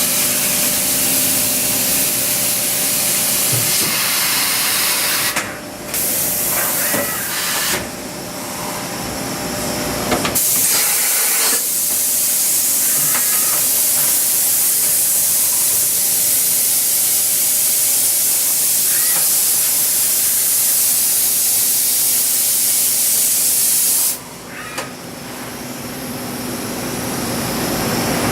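1994 Mazak H-400N CNC horizontal machining center running, with a loud hissing spray that breaks off about five seconds in, comes back around ten seconds and stops suddenly near the end, leaving the machine's steady hum.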